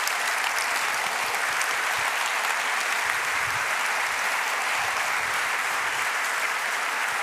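A large audience applauding steadily in a hall at the end of a talk.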